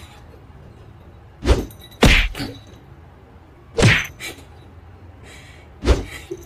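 Sharp knocks and thuds, in small clusters about every two seconds, as a cat rears up on its hind legs and strikes with its front paws.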